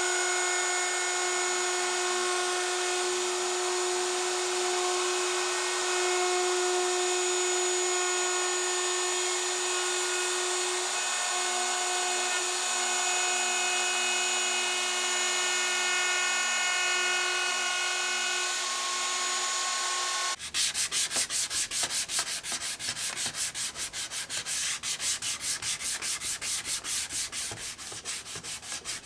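Compact wood router running steadily with a high whine as it rounds over plywood box edges. About twenty seconds in it gives way to rapid back-and-forth hand sanding of the plywood with 220-grit sandpaper, a rhythmic scratchy rubbing.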